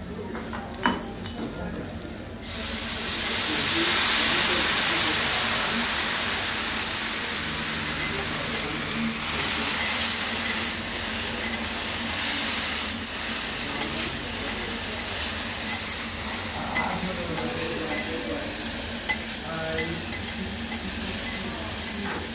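Bean sprouts sizzling on a hot steel teppanyaki griddle. The sizzle jumps up suddenly about two seconds in and then slowly eases. Metal spatulas scrape and tap as the sprouts are turned.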